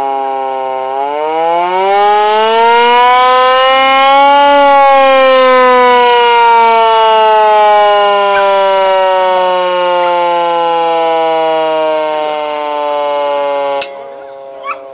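Hand-cranked air-raid siren wailing. Its pitch climbs for a few seconds as the handle is cranked up to speed, then sinks slowly as it winds down, until it stops abruptly near the end.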